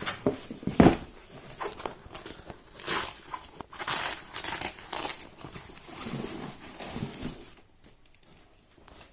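Packaging being handled and pulled apart: irregular crinkling, rustling and tearing of wrapping, with a few knocks, the loudest about a second in. It goes quieter near the end.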